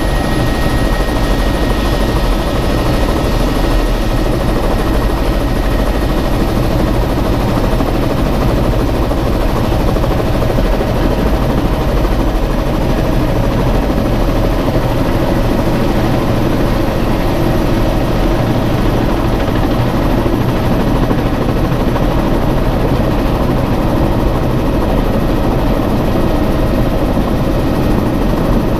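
Bell 206 JetRanger helicopter's turboshaft engine and rotor running steadily, heard from inside the cabin.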